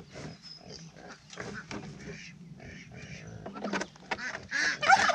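Plastic mower-deck baffle knocking and rustling against the lawn tractor's deck as it is lined up and fitted, with farm animals calling in the background; a loud animal call comes near the end.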